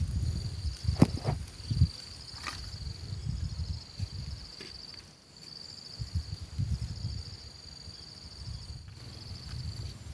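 Insects trilling at a high pitch in long runs with short breaks, over an uneven low rumble. A few sharp knocks come about one to two seconds in, the loudest about a second in.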